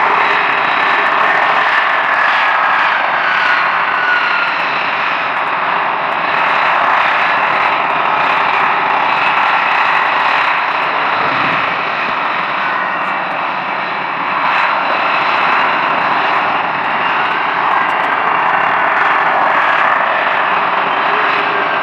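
Jet engines of a line of taxiing F-22 Raptors, Pratt & Whitney F119 turbofans at taxi power. They make a steady, loud rush with a high whine that drifts slowly in pitch.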